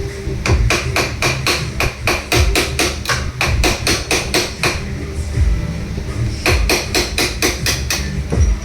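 Sewing machine running at a slow, even speed in two bursts, its needle mechanism clicking about five times a second.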